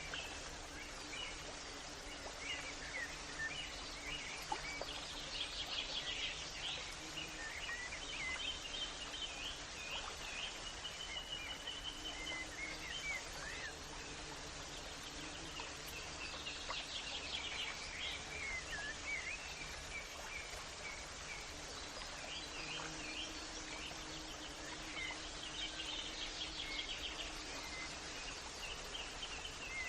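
Several birds chirping and trilling in short repeated phrases, over a steady outdoor background hiss with a faint low hum underneath.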